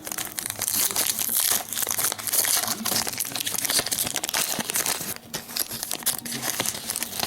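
Foil wrapper of a Panini Prizm trading-card pack crinkling as it is torn open and handled, a dense irregular crackle that eases briefly about five seconds in.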